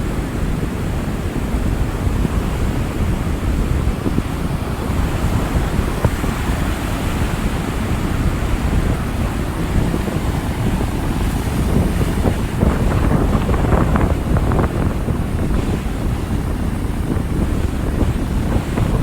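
Rough Atlantic surf crashing and washing, with strong wind rumbling on the microphone; the surf swells louder about two-thirds of the way through.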